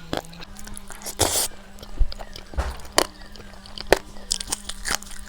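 A person eating close to the microphone: chewing, with scattered sharp clicks and a longer rustling burst about a second in, over a faint steady hum.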